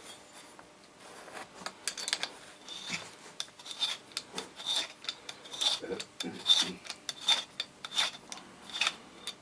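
Valve seat cutter scraping a valve seat in a 139QMB moped engine's aluminium cylinder head, in repeated short strokes about two to three a second that begin about a second and a half in. The cut widens the seat's lower chamfer to narrow the valve's contact face.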